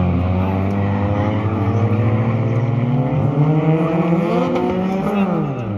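Racing car engines in the 1.6-litre class accelerating out of a tight hairpin, several engines overlapping; one climbs steadily in pitch and then drops sharply near the end.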